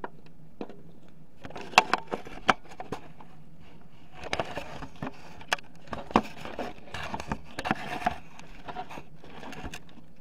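Handling noise from a homemade BB gun worked right by the microphone: irregular clicks, knocks and short scrapes, the sharpest clicks about two seconds in and again around five and six seconds, over a steady low hum.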